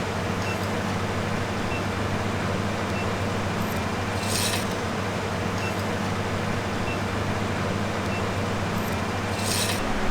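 A motor hums steadily. Two short, high scraping hisses come about four and nine and a half seconds in.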